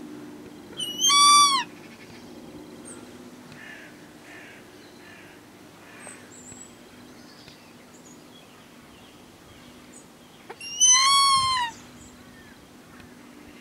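Young Harris's hawk calling twice, about ten seconds apart: each a loud, clear call under a second long that rises and then falls in pitch. A faint steady low hum runs underneath.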